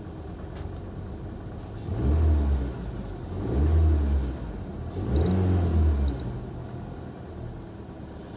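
Honda City four-cylinder petrol engine idling and being revved three times, each rev rising and falling back to idle, running evenly after the cylinder 3 injector work that the mechanic says has cured the misfire. Two short electronic beeps come near the middle.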